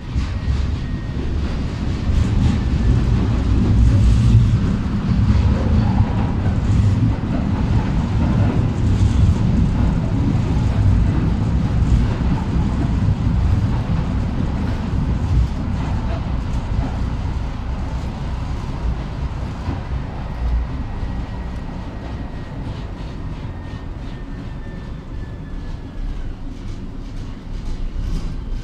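Bucur V2A-T articulated tram running along the track, heard from inside the passenger car: a steady low rumble of wheels on rails and running gear, loudest in the first half and easing off toward the end, with a faint high whine now and then.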